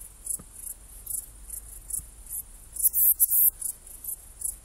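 Saddle-backed bush cricket (Ephippiger ephippiger) stridulating: short, high-pitched chirps at uneven intervals, with a quicker run of them about three seconds in.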